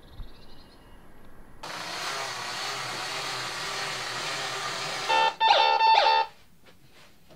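Scooter 2000 toy robot whirring steadily as its motor runs, then a loud warbling electronic tone in two short parts for about a second near the end.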